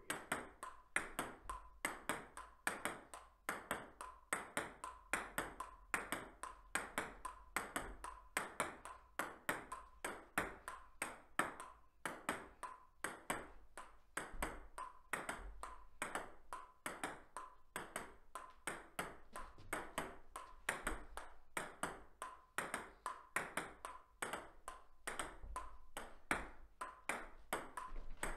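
Table tennis rally: a plastic ping-pong ball clicking sharply off paddles and the table in a quick steady rhythm, about three hits a second.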